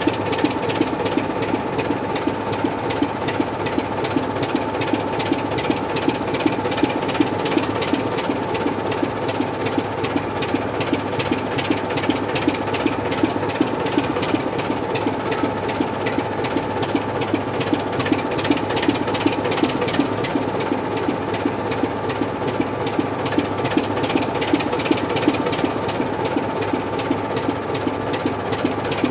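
Diesel locomotive engine running steadily at constant revs, its rapid even firing beats topped by a steady whine.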